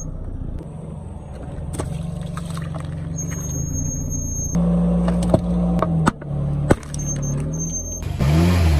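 Car engine running slowly while its tyres roll over objects, with several sharp cracks and snaps as they are crushed. Near the end the engine revs briefly, its pitch rising and falling.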